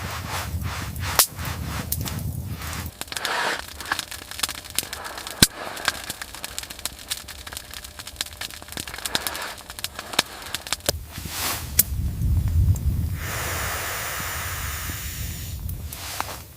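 Wood fire crackling in a small tent stove, with irregular sharp snaps and pops over a low rushing noise, and a stretch of hiss about thirteen seconds in.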